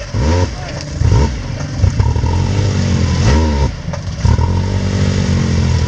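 Off-road vehicle engine revving in repeated bursts, its pitch rising and falling, easing off briefly about a second in and again near the four-second mark.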